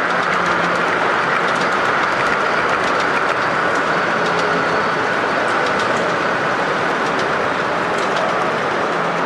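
Gauge 0 model passenger train, a BLS locomotive hauling coaches, rolling past on its track: a steady running noise with light clicks from the wheels.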